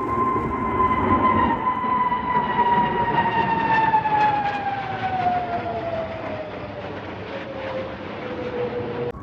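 Display jet, an Aermacchi MB-339 with a single turbojet, flying past: a loud rush of engine noise with a whine that falls steadily in pitch as the aircraft goes by and draws away, loudest in the first few seconds.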